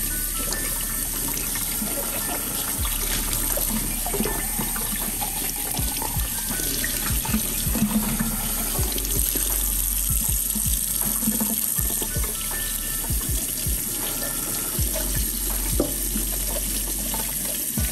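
Tap water running into a stainless-steel sink and splashing over bell peppers as they are rubbed clean by hand, with occasional knocks.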